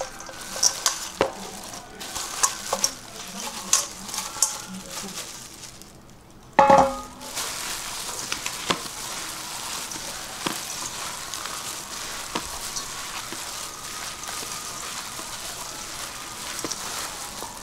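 Gloved hands tossing and mixing chicken larb with chopped lettuce and herbs in a stainless steel bowl: a steady rustling hiss with light knocks against the bowl. About six and a half seconds in comes one loud metallic clank with a short ring from the steel bowl.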